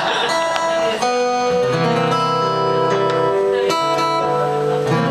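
Two acoustic guitars strumming chords, each chord struck and left to ring, a new chord about every second.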